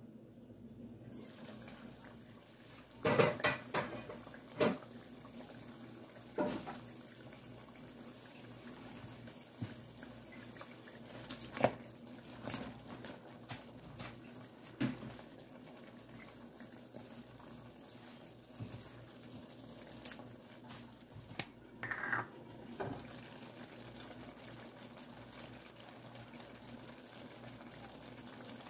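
Cooking pot of simmering stew with a glass lid, giving a steady low hum and bubbling. Scattered sharp clinks and knocks of the lid and cookware are heard, a quick cluster a few seconds in and single ones later.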